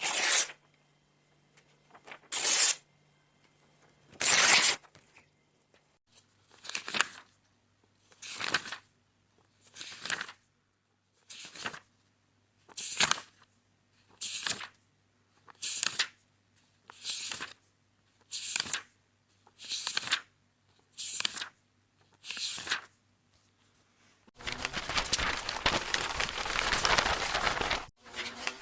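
Paper being handled like a book's pages, turned and torn: three loud, sharp paper strokes in the first five seconds, then about a dozen page turns, one every second and a half. Near the end comes a few seconds of continuous paper rustling.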